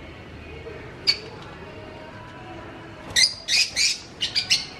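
Small caged parrots chirping: a single sharp chirp about a second in, then a quick run of loud, shrill chirps from about three seconds in.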